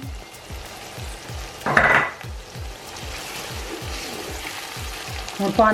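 Onion-tomato masala sizzling in hot oil in a cooking pot as it is stirred, with a louder burst of sizzle and clatter about two seconds in. A steady low thumping beat runs underneath.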